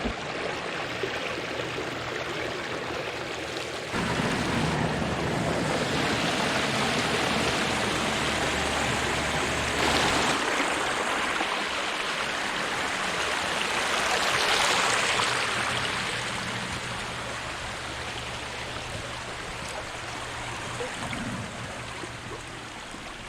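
Creek water rushing and splashing over rocks, a steady roar of running water. It jumps louder about four seconds in, is loudest around the middle, and eases off toward the end.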